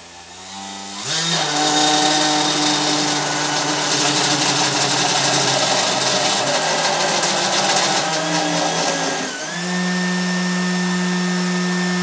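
A 3D-printed PLA 120 mm fan driven by a racing-drone brushless motor, spinning up about a second in to full throttle: a loud motor whine over a rush of air. About nine seconds in the pitch dips briefly, then settles into a steadier, less hissy whine.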